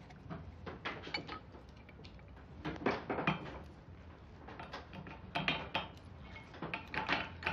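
Light metallic clinks and knocks as a small steel cylinder is handled and fitted into a small bottle-jack press, coming in several short clusters of sharp taps.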